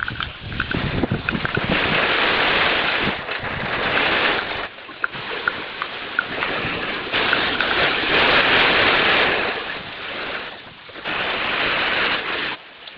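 Storm wind and rain rushing in gusts, swelling and easing every few seconds, with wind buffeting the microphone.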